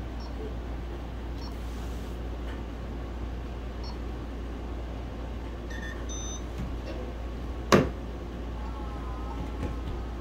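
A child handling a plastic toy play kitchen, over a steady low hum. A couple of short electronic beeps come about six seconds in, and a sharp knock, the loudest sound, follows a second and a half later.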